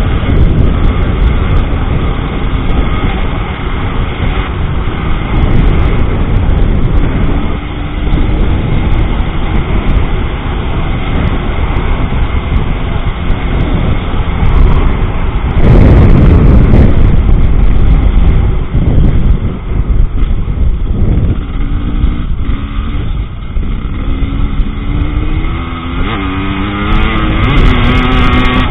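Husqvarna TE300 two-stroke enduro motorcycle being ridden, its engine note rising and falling with the throttle, under heavy wind buffeting on the helmet-camera microphone. The wind noise surges loudest a little past halfway.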